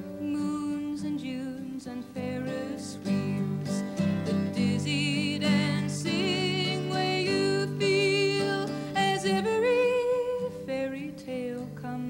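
A woman singing solo with her own strummed acoustic guitar, the held notes of the melody sung with vibrato.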